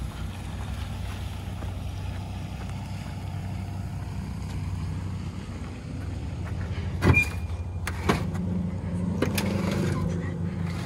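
Steady hum of an idling engine, with three sharp metal clanks in the last few seconds; the first rings briefly.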